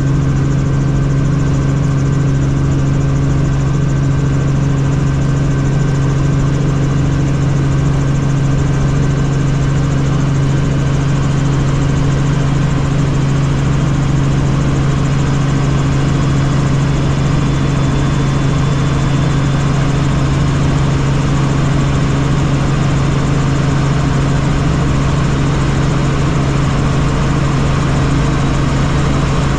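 Helicopter in flight: a loud, steady drone of engine and rotor, with an unchanging low hum.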